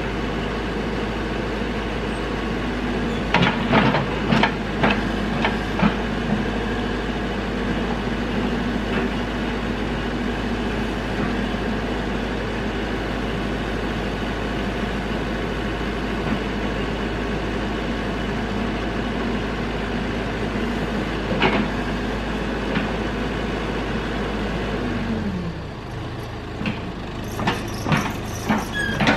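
Caterpillar backhoe's diesel engine running steadily under work, with a cluster of sharp knocks a few seconds in, another at about 21 seconds, and more near the end. About 25 seconds in, the engine note slides down as it is throttled back.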